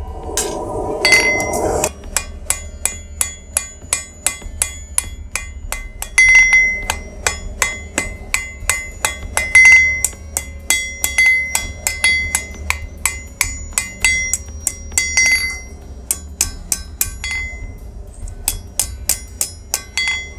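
Hand hammer striking a red-hot mild steel bar held in tongs on an anvil, about two blows a second, each with a bright metallic ring, with a short break near the end. A brief rushing noise comes just before the hammering starts.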